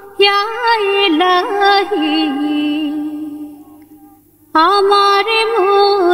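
A single voice singing a slow, ornamented melody from a Bangla hamd (Islamic devotional song). The phrase dies away about three seconds in, and a new one starts about a second and a half later.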